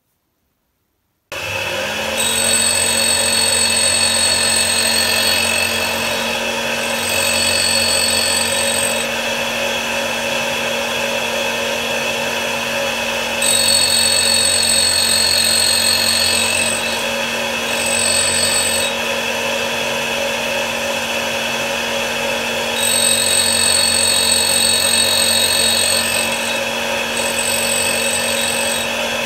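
A small homemade tool grinder's motor switches on about a second in, spins up and runs steadily with a hum. Its diamond cup wheel grinds the cutting edges of a countersink in several passes of a few seconds each, every pass adding a louder high-pitched grinding whine. The grinding is reducing the excessive relief angle that makes this countersink chatter.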